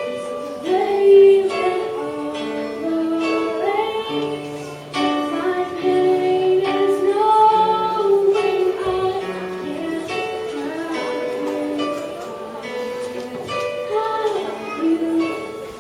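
A young girl singing a pop song over instrumental backing music, holding and sliding between notes.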